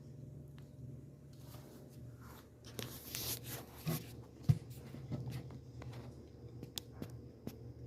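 Scattered clicks, rustling and handling noises, with one sharp thump about halfway through, over a low steady hum.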